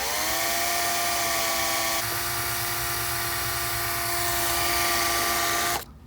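Electric drill spinning up and running at a steady pitch, dipping slightly about two seconds in, as it bores a small hole through a car's parking brake handle. It stops near the end.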